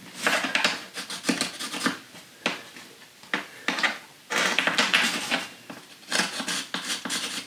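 Hard objects being handled at close range: a series of clinks, taps and scrapes, like tools and tile being picked up and set down, with longer busy stretches in the second half.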